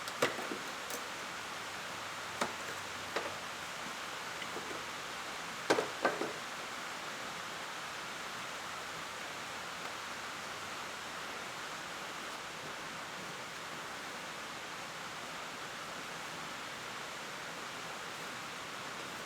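Steady background hiss with a handful of short clicks and knocks in the first six seconds, the loudest pair about six seconds in, then only the hiss.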